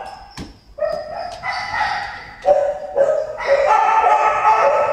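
Shelter dogs barking in their kennels, in long drawn-out calls that run into one another, with a sharp knock about half a second in.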